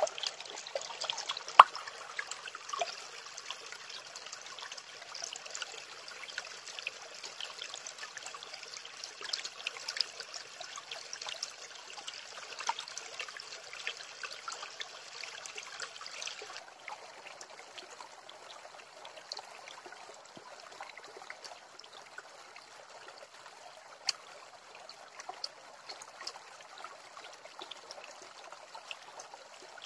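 Shallow stream running steadily over rocks, with scattered small clicks and one sharp click about a second and a half in; the water sound turns duller and softer a little past halfway.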